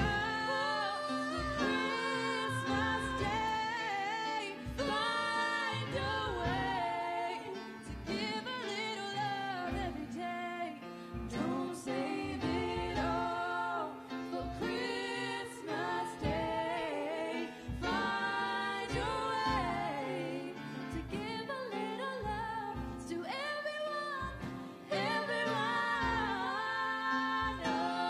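Two women singing a duet into handheld microphones, their voices held in long notes with vibrato, over a live band with a steady low beat.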